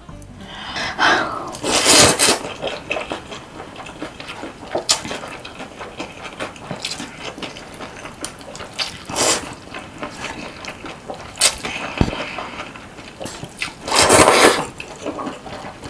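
Close-miked slurping and chewing of cold buckwheat noodles (naengmyeon) in broth, with wet clicks and crackles throughout. Three louder slurps come about two seconds in, near the middle and near the end.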